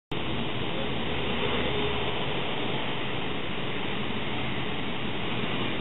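Distant single-engine propeller airplane, the Melmoth 2 homebuilt, droning faintly on landing approach under a steady, even rushing noise.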